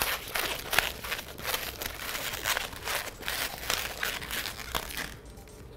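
Latex modelling balloons being twisted and rubbed by hand into a small pinch twist: irregular squeaks and rubbing strokes, easing off near the end.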